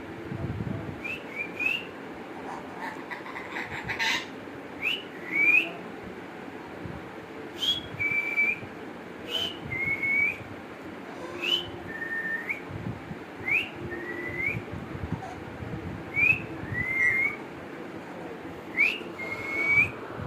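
Clear two-note whistles repeated about every two seconds: a short, sharp rising note, then a longer slurred or held note. A few clicks and short chirps come before the first whistle.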